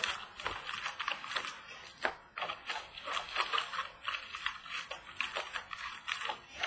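Crinkling and rustling of foil card packs and paper being pulled out of an opened 2017 Donruss Optic Baseball cardboard box, with many light clicks and taps.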